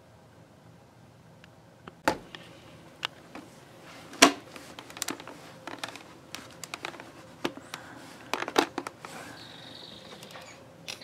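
A string of irregular sharp clicks and knocks from a glazed door being handled, the loudest knock about four seconds in.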